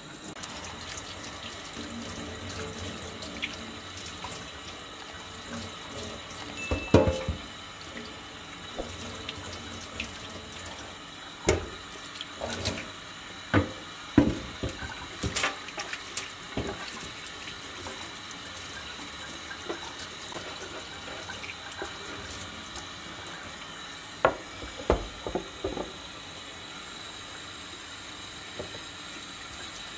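Kitchen tap running into a stainless steel sink while raw cow shanks are washed in a metal pot. Sharp knocks and clatters of bone and pot against the steel come in clusters: a few seconds in, through the middle, and again near the end.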